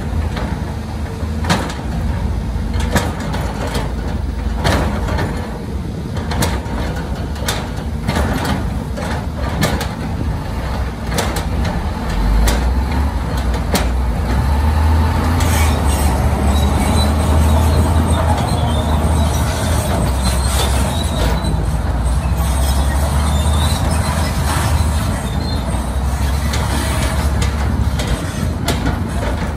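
Diesel engine of heavy earth-moving equipment running under load, with scattered sharp knocks and clanks for the first dozen seconds. The engine then labours harder, with a broad rushing noise over it, until near the end.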